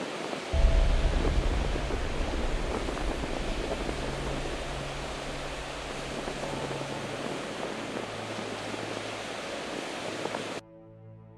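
Ocean surf washing onto the beach, a steady hiss, under background music with a deep bass that comes in about half a second in. About a second before the end the surf cuts off abruptly, leaving only faint, fading music tones.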